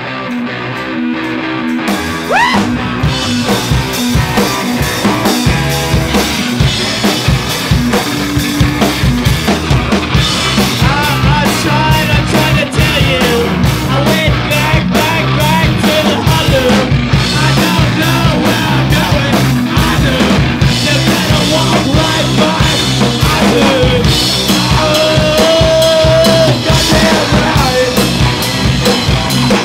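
Live punk rock band playing loud with electric guitars, bass guitar and drum kit. The full band with drums comes in about two seconds in.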